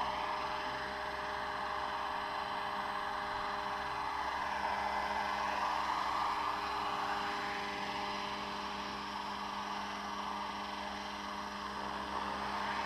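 A 700-size scale AS350 radio-controlled helicopter hovering low: a steady whine from its drive with the rushing of the spinning rotor blades, swelling and easing slowly as it moves.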